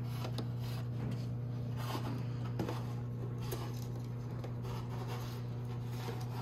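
Light rubbing and small clicks of a thin cable and plastic parts being handled as the cable is fed through a hole in a TV's plastic back panel, over a steady low hum.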